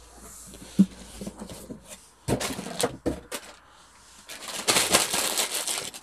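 Packaging being handled inside a cardboard box: a few sharp knocks and rustles, then plastic wrapping crinkling for a second or two near the end.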